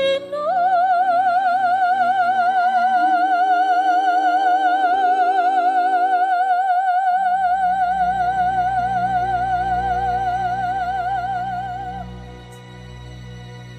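A high soprano voice holding one long sung note with wide, even vibrato for about eleven seconds over soft orchestral accompaniment; the note ends near the end and the orchestra carries on more quietly.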